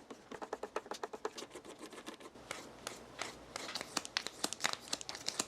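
Hook knife blade worked in quick, short scraping strokes while it is being sharpened, several strokes a second, with a brief pause about halfway through and firmer strokes near the end.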